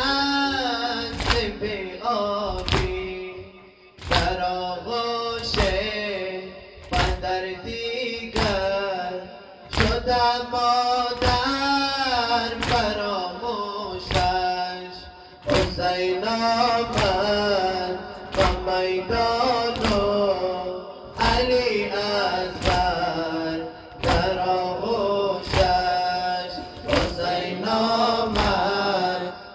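A male voice chanting a Dari mourning lament (noha) through a microphone and PA. A group of men beat their chests in time with it, making a steady beat of thuds.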